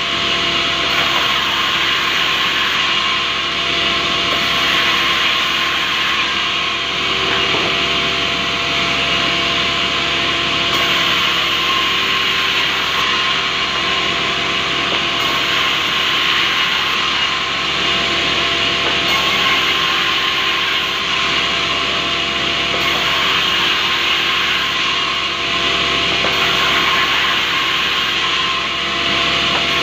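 Sawmill band saw ripping a rubberwood plank lengthwise. The blade cuts with a loud, steady hiss over the even hum of the running machine.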